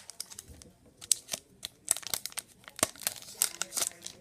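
Wrapper of a hockey trading card pack being torn open and crinkled, a scattered run of short, sharp crackles.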